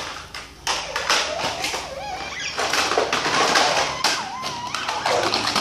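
Plastic toy trucks knocking and clattering as they are handled and moved about, with scraping between the knocks that grows busier in the second half.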